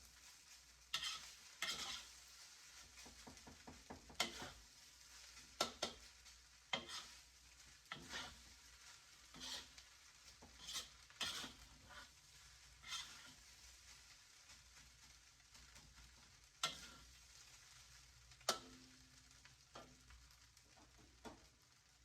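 A utensil scraping and clacking against a pan as fried rice is stirred, about a dozen strokes at roughly one every second or so that thin out in the last third, over a faint sizzle of frying.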